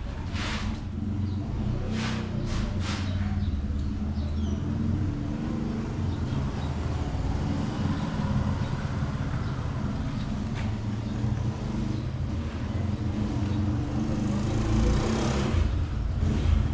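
Steady low motor rumble, with a few sharp knocks in the first three seconds.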